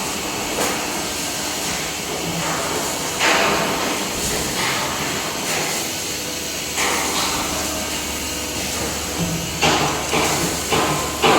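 Banding machine running: a steady mechanical hiss broken by knocks and clatters every second or two, which come quicker and louder near the end.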